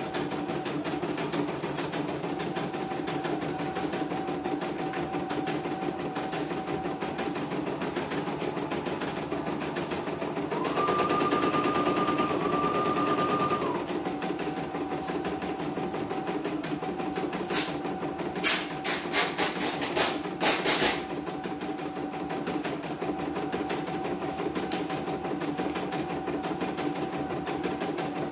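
CNY single-needle computerized embroidery machine stitching a design: a steady rapid needle chatter over a motor whine. A little before the middle it gets louder and the whine jumps higher for about three seconds, and about two-thirds of the way through comes a quick run of sharp clicks.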